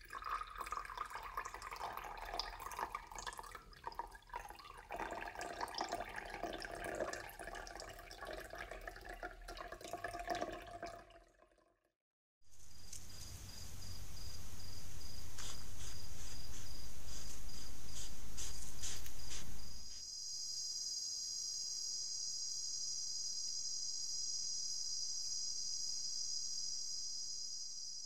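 Wildlife field recording from a camera trap. First comes a busy, dripping, watery sound that cuts out about twelve seconds in. After a short silence a hiss with a thin high tone and scattered clicks follows, and from about twenty seconds in a steady, high-pitched chorus of crickets or similar insects takes over.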